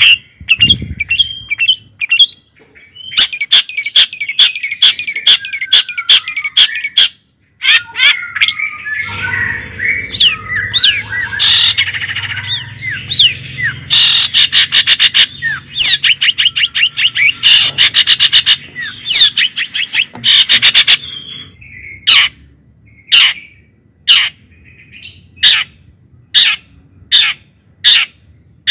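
Bird chirping and calling: runs of sharp, loud chirps and fast trills, busiest in the middle, then spaced single chirps near the end.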